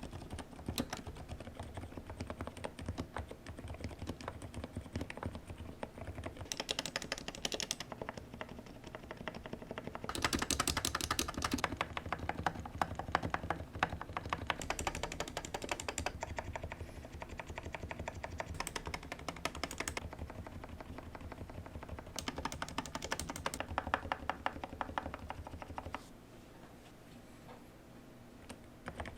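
Rapid typing on a relubed Ninja 87 custom mechanical keyboard with Cherry silent red linear switches, lubed with Krytox, tape-modded and foam-dampened: a dense run of soft keystroke clacks. The typing grows louder and busier about ten seconds in and again past twenty seconds, then eases to a quieter patter near the end.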